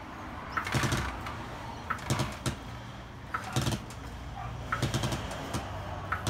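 ToolPRO 3000 kg low-profile hydraulic trolley jack being pumped by its long handle, a knock and a brief squeak with each stroke, about one stroke every second or so, as it takes the weight of a car.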